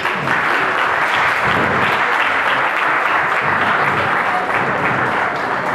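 Audience applauding after a performance: dense, steady clapping that starts suddenly and eases off slightly near the end.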